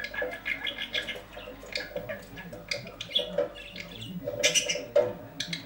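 Budgerigar chattering, a rapid run of short calls, with brief sharp splashes as it bathes in a water-filled bath house.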